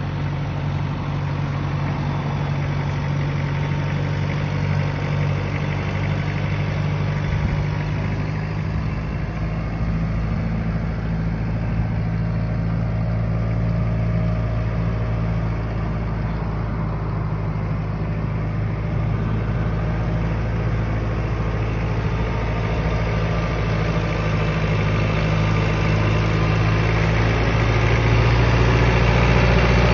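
Kubota LowProfile tractor's diesel engine running steadily while it drags a tree stump on a chain. The engine note shifts about a quarter of the way in and grows louder near the end.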